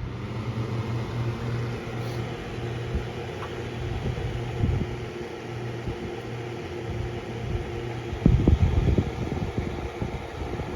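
Duracraft 8-inch table fan switched on at high speed, starting abruptly and running with a steady hum and rush of air, pretty noisy. A burst of low thumps comes about eight seconds in.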